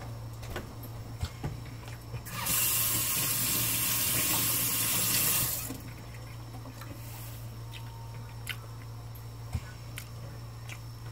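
A steady stream of liquid running for about three and a half seconds, starting about two seconds in and stopping abruptly, over a constant low hum.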